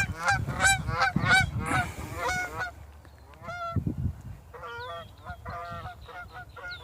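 Geese honking: many overlapping honks for the first two or three seconds, then fewer, separate honks.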